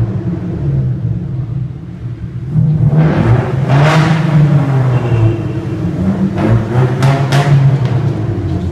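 Vehicle engine running, its pitch rising and falling, with a few sharp knocks about two-thirds of the way in.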